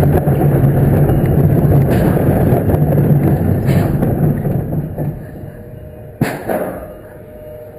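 Zierer family roller coaster train rumbling along its steel track, fading as it slows into the station. A single sharp clunk comes about six seconds in.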